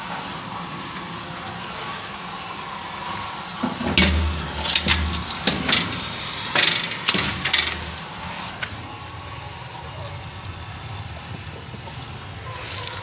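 Steady background hiss, broken about four seconds in by a few seconds of rustling, clicks and low bumps from a handheld phone being swung about and rubbed, before the steady hiss returns.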